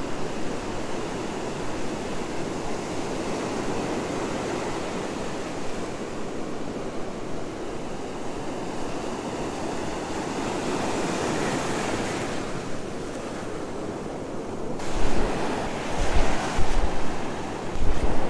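Ocean surf washing and breaking around the listener's feet, a steady rush. In the last few seconds, loud low rumbling buffets on the microphone break in over the waves.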